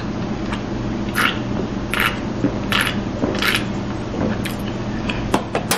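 A person gulping a drink from a can into a close microphone: four swallows about three-quarters of a second apart, then a few sharp clicks near the end.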